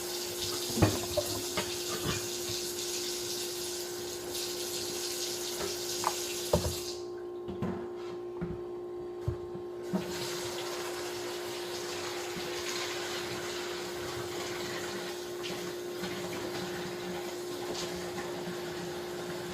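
Cold water running from a tap into a plastic milk jug to fill it. The rushing drops away for about three seconds partway through, then runs on steadily. A steady low hum sits under it, with a few light knocks in the first half.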